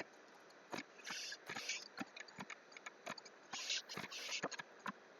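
Faint, irregular clicking and tapping of a computer keyboard and mouse, with a few short hissy sounds a second in and again about three and a half seconds in.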